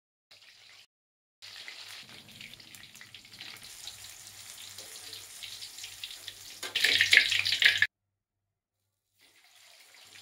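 Hot oil sizzling in a wok as eggplant pieces deep-fry, with a louder burst of sizzling about seven seconds in. After a short break, a whole red tilapia fries in the oil with a quieter sizzle.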